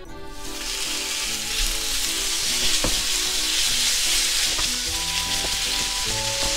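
Cubes of raw beef sizzling as they hit hot oil in a frying pan on high heat, a steady hiss that starts just after the meat goes in, while a wooden spatula spreads them around the pan.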